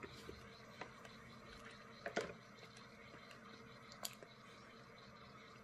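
Faint eating sounds: a few short soft clicks and small mouth noises as a mouthful of rice and pork from a self-heating hot pot is eaten, over quiet room tone.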